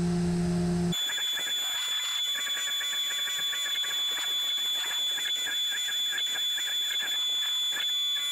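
Tormach PCNC 440 CNC mill running a sharp engraver through brass: a steady high-pitched spindle whine with a faint wavering cutting sound under it as the tool traces lettering. A low hum cuts off suddenly about a second in, where the whine begins.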